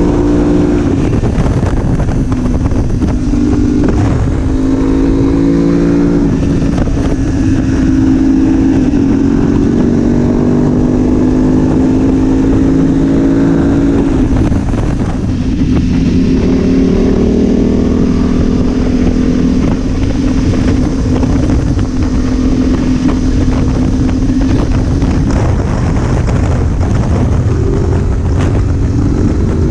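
2019 BMW F850GS Adventure's parallel-twin engine running under way. Its pitch climbs under throttle and drops several times as the rider shifts and eases off, then holds steadier through the second half.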